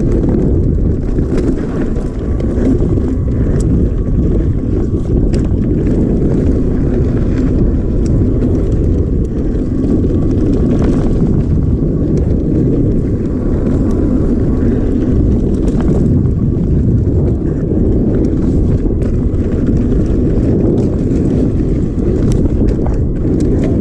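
Mountain bike riding a dirt trail: a steady low rumble of wind on the microphone and tyres on the ground, with scattered clicks and rattles from the bike.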